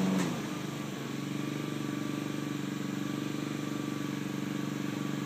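Walk-behind lawn mower engine running. Its pitch and loudness drop just after the start, and then it runs steadily at a lower speed.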